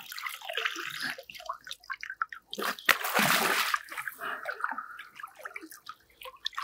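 Water splashing and sloshing as a large common carp thrashes while being handled, with a longer, louder rush of water about three seconds in.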